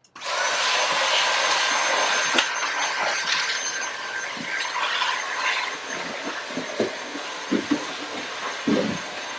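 Vacuum cleaner switched on and running with a steady motor whine and rush of air, with scattered knocks and rattles over it.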